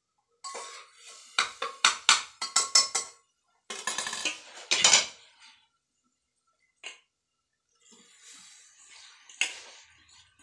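A metal spoon stirring and knocking against an aluminium cooking pot in a quick run of clanks, then a louder clatter of pots being handled. Softer rustling follows, with one clink near the end.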